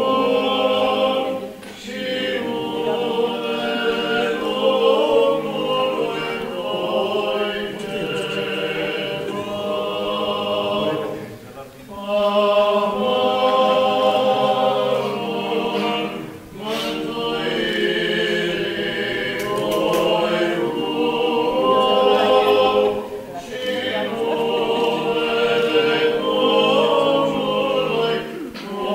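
Choir singing Orthodox liturgical chant a cappella in long phrases, with a steady low note held underneath and brief pauses between phrases.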